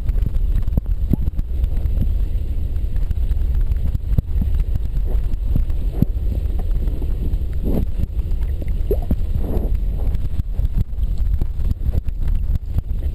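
Muffled, steady low rumble of water against a waterproof camera in the creek, with frequent small knocks and clicks from the water and handling.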